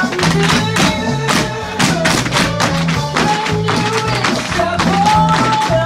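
Upbeat backing music with a bouncing bass line, overlaid with many quick, sharp taps from a group of tap dancers' shoes striking a wooden floor.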